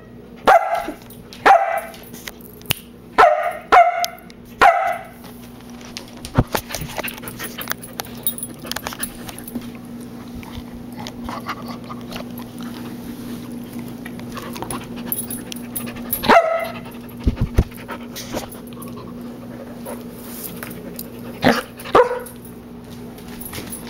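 Samoyed puppy barking: five short barks in the first five seconds, one more about sixteen seconds in and two near the end, with clicks and rustling in between.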